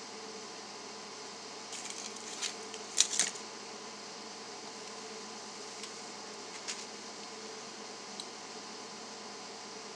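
Steady background hiss, with a short spell of rustling and clicking about two to three seconds in as the plastic-canvas mesh fursuit head base is handled and pulled off the head. A few faint ticks follow later.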